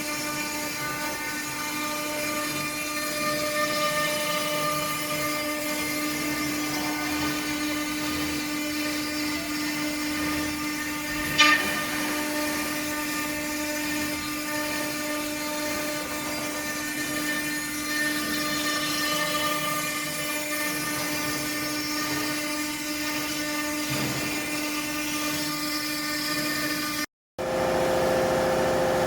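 Spindle of a vertical stone-carving CNC router running steadily while cutting, a whine made of several held tones, with one sharp click about eleven seconds in. Near the end the sound breaks off and gives way to a different steady machine hum.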